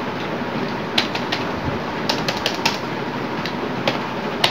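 Computer keyboard keys clicking as text is typed: about ten separate keystrokes, several in a quick run around two seconds in, over a steady background hiss.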